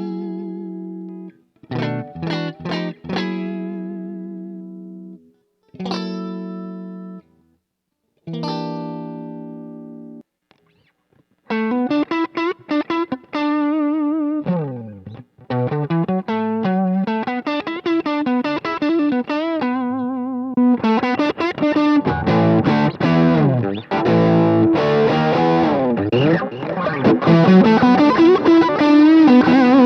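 Distorted electric guitar, a 1990s Giannini Stratosonic, played through an effects pedalboard into a Sonicake Sonic IR impulse-response cabinet simulator, recorded direct with no amplifier. A few strummed chords are left to ring out, then about a third of the way in comes a fast lead line with bends and vibrato, which grows denser and louder in the last third.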